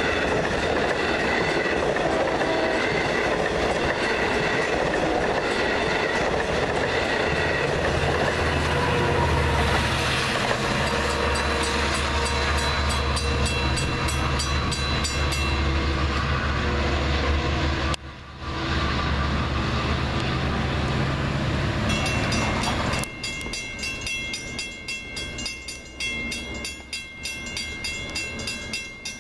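Long Island Rail Road diesel trains: bilevel coaches rumbling past on the rails, then an EMD DM30AC diesel locomotive passing close with a loud, steady low engine hum. Near the end it gives way to a quieter, more distant train sound.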